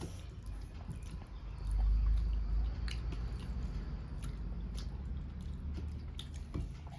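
Close-up mouth sounds of a person eating rice and curry: chewing and biting with small wet clicks and smacks. A low rumble swells about two seconds in and lasts about a second.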